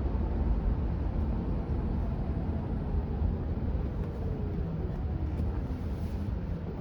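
Steady road and tyre noise inside the cabin of a Cruise self-driving Chevrolet Bolt electric car on the move, a low rumble with no engine note. A faint whine falls in pitch about halfway through.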